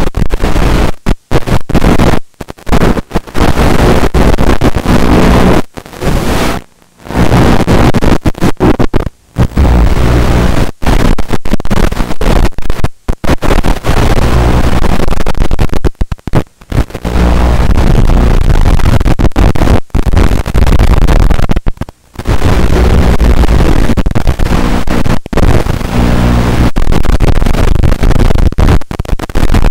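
Loud static hiss from an analog FPV video link's audio channel, cutting out abruptly to silence many times at irregular intervals.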